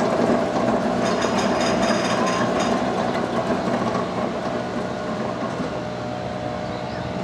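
Vekoma steel roller coaster train running along its track: a steady rumble of wheels on steel rail. A thin high squeal rides over it from about one to three seconds in, and the rumble eases slightly near the end.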